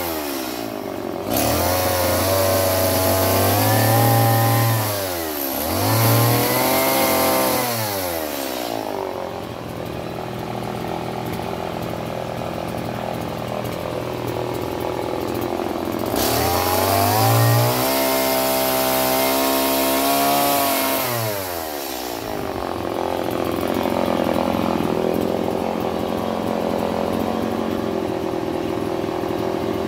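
Two-stroke Stihl chainsaw with a carving bar, revving up and down in repeated bursts and running in longer steady stretches while cutting into the wooden figure.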